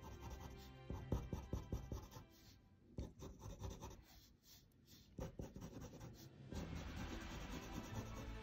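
Coloured pencil scratching quick short strokes on paper, drawing hair lines, with a quieter pause of a couple of seconds in the middle. Faint background music underneath.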